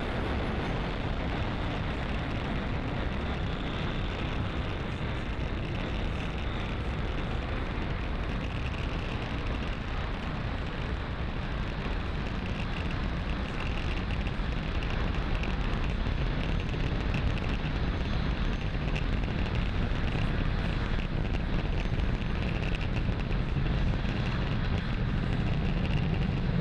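Falcon 9 rocket's first stage, its nine Merlin engines at full thrust during ascent, heard as a steady low rumbling roar. The deep rumble grows stronger about two-thirds of the way through.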